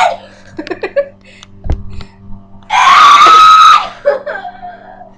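A girl's loud, high-pitched scream lasting about a second, midway through, preceded by scattered knocks, rustling and a low thump from the camera being handled.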